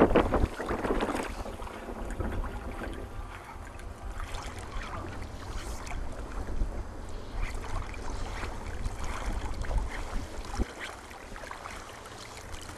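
Wind rumbling on the microphone over small waves lapping in shallow sea water, with a louder burst of noise in the first second or so.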